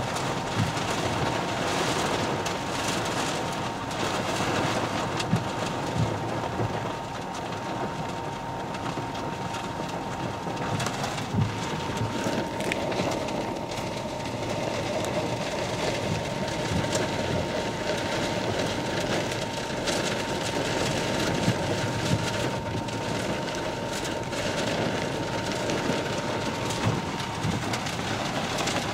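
Heavy rain beating on a car's roof and windows with wind buffeting the car, heard from inside the cabin: a steady rushing with scattered small knocks.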